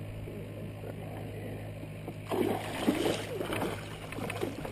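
Water sloshing and gurgling against the pontoons of a belly boat as it moves, starting about two seconds in, over a low steady hum.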